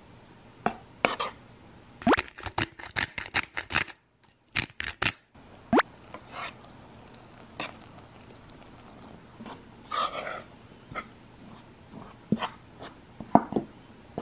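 Kitchen food-prep sounds: scattered sharp knocks and clicks of utensils, with a quick run of about eight strokes a couple of seconds in.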